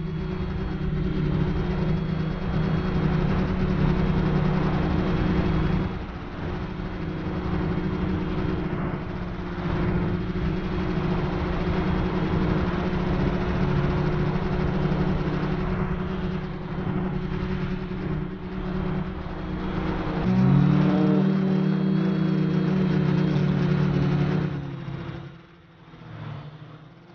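FPV drone's electric motors and propellers buzzing steadily, heard through the onboard camera with wind noise. The pitch steps up with more throttle about 20 seconds in, then the sound drops away sharply near the end as the throttle is cut.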